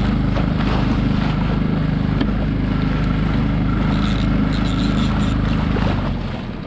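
Small outboard motor on a Solo Skiff running steadily under way, with water rushing along the hull. About six seconds in it is throttled back toward idle and the sound drops.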